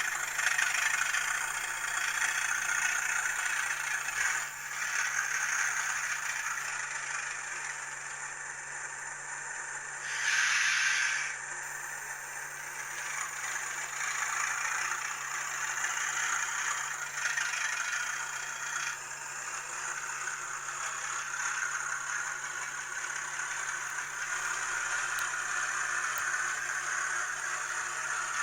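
Hornby TTS sound decoder playing a Class 37 diesel engine sound through the N gauge model's small speaker, mixed with the rattle of the locomotive's old brass gears and wheels running on the track. A brief louder sound comes about ten seconds in.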